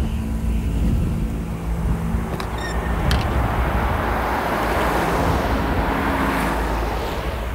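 Cars passing close on a highway: tyre and engine noise swells from about four seconds in and eases near the end, over a steady low rumble.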